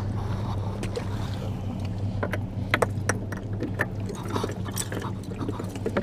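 Clicks, knocks and rattles of fish and gear being handled in a bass boat's livewell, ending with the hinged livewell lid being shut, over a steady low mechanical hum from the boat.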